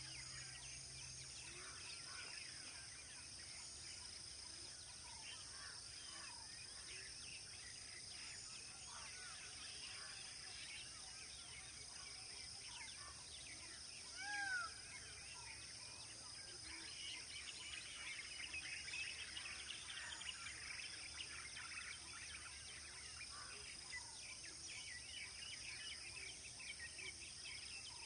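Wild birds chirping and calling all around over a steady high drone. One louder, arching call comes about halfway through.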